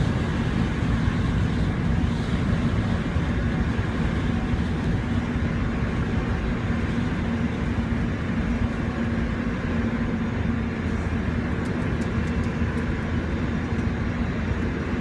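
Metro train running noise heard inside the carriage: a steady rumble from the wheels and running gear with a constant low hum.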